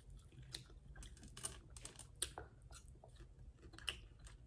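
Close-up chewing of a mouthful of grilled steak, faint: irregular soft wet clicks from the mouth.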